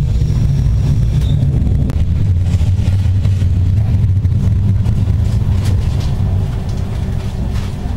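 Steady low rumble of a moving regional train heard from inside the passenger carriage, with a few faint clicks over it.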